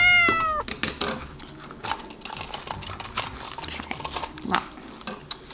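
A short falling vocal exclamation at the start, then scattered small clicks and scrapes of a blade cutting through a Furby toy's fur and plastic.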